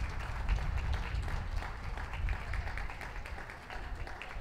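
Audience applauding, a steady spatter of clapping.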